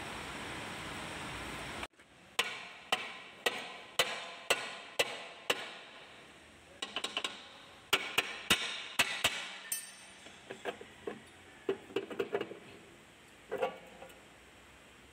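A steady hiss cuts off abruptly about two seconds in. Then a hammer strikes metal: seven evenly spaced blows at about two a second, then quicker clusters of blows, then lighter scattered taps near the end.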